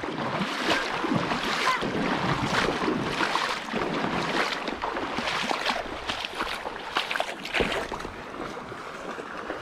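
Shallow creek water splashing and sloshing in irregular bursts, as of someone wading through it.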